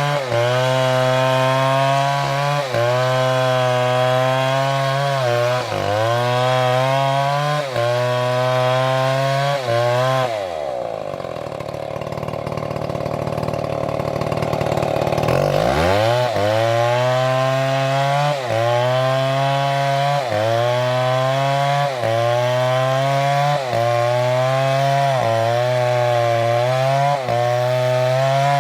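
Large chainsaw running at high revs and cutting wood, its engine pitch sagging under load and recovering every couple of seconds. About ten seconds in the revs fall away and it runs quieter for about five seconds, then revs back up and cuts again with the same sagging pattern.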